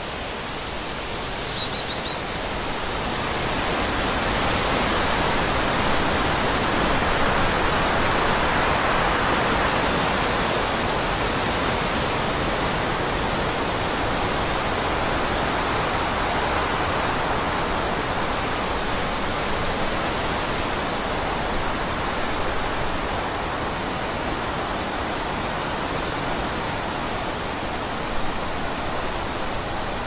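Forest ambience: a steady rushing noise, as of wind through trees or running water, that swells over the first few seconds and slowly eases off. A brief high bird chirp comes near the start.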